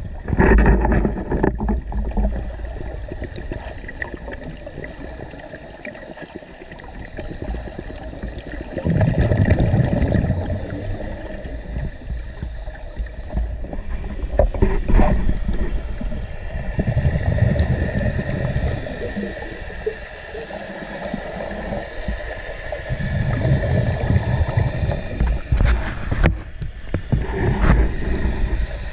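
Scuba diver's exhaled bubbles from a regulator rumbling past an underwater microphone in four long bursts, several seconds apart, with a couple of sharp clicks near the end.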